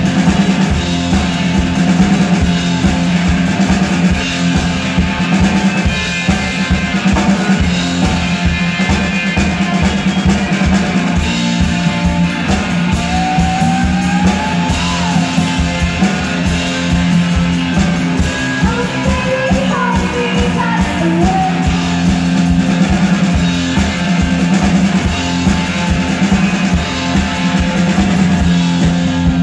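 Live rock music: an electric guitar and a drum kit playing together, loud and steady, with a driving beat and some bent, sliding guitar notes in the middle of the passage.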